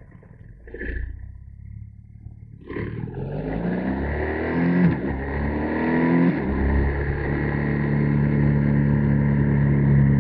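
BMW R1250GS boxer-twin motorcycle engine pulling away from a standstill. After a couple of fairly quiet seconds the revs rise twice, with a gear change between the two climbs, then the engine settles into steady running at road speed.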